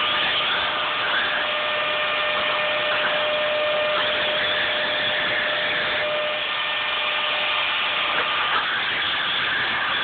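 Hand-held hair dryer running, a steady rush of blown air with a motor whine that shifts a little a few times.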